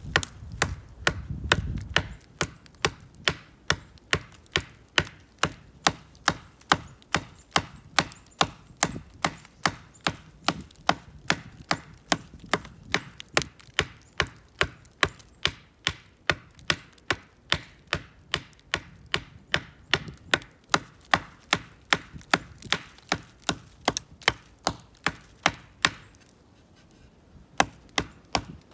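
Pine-pitch-hafted ground stone axe chopping into a black walnut sapling's trunk: a fast, even run of sharp chops, about two to three a second, with a short pause near the end.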